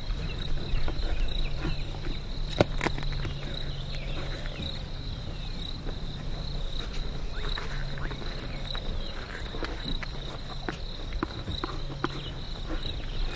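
Lions feeding on a zebra carcass: irregular wet clicks, cracks and tearing from chewing and pulling at the meat, the sharpest crack about two and a half seconds in. Underneath is a steady, evenly pulsing high insect trill and a low hum that comes and goes.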